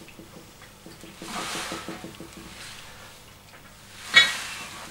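Heavy breathing of a man lifting a barbell during curls: soft, noisy exhales, then a sharper, louder breath about four seconds in as he curls the weight up.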